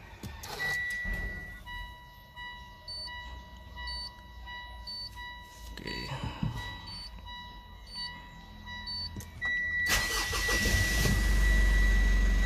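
A car's dashboard warning chime beeps about once a second with the ignition on. Near the end the Mitsubishi Montero Sport's turbo-diesel engine cranks briefly, fires and settles into a steady idle, starting normally after two months of sitting.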